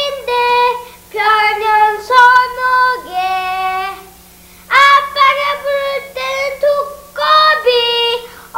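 A young child singing a song solo and unaccompanied, in high held notes and phrases, with a pause of about a second near the middle. A faint steady hum runs underneath.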